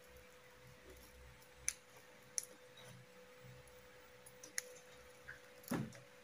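A few sharp clicks, with a longer, louder crackle near the end, over a faint steady high tone.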